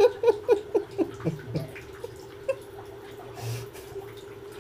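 Water in a sink basin plopping and bubbling in a quick run of short, loud plops, then a few scattered drips, over a steady hum.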